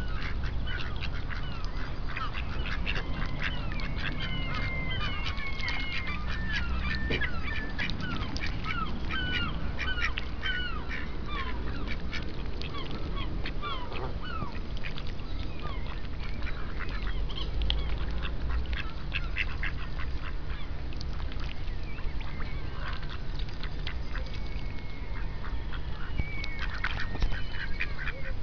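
Mallards and Canada geese calling: a steady flurry of short quacks and sliding calls, busiest in the first half and picking up again near the end.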